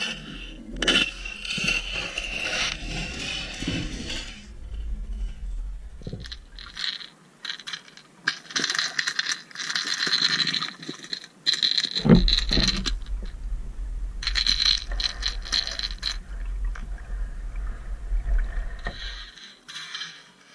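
Underwater noise picked up through a submerged camera housing: dense crackling and scraping clicks. A low rumble runs through the first seven seconds, stops, and returns from about twelve seconds in until near the end.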